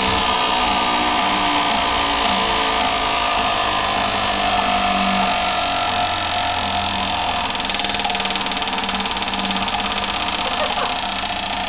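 Prize wheel spinning, its pointer clicking against the pegs so fast that the ticks run together into a steady buzzing rattle. It turns to a more pulsing, rapid ticking in the last few seconds.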